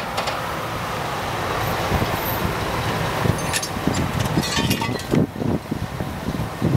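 Outdoor vehicle noise with wind gusting on the microphone, and a cluster of light metallic clinks and rattles around the middle.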